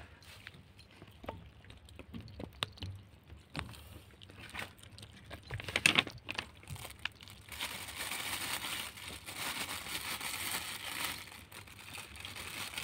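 Cats and kittens eating off a paper sheet on the floor: scattered small clicks and crackles of chewing and of the paper moving under paws and heads, louder around six seconds in. A few seconds later the paper starts crinkling and rustling more steadily for about four seconds.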